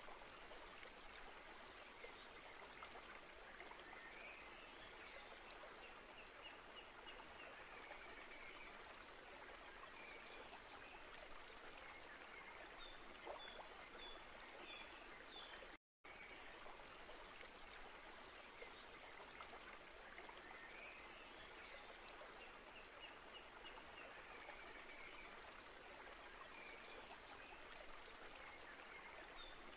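Faint background ambience of flowing stream water with small high chirps over it. The track loops, dropping out for an instant about halfway and starting the same pattern again.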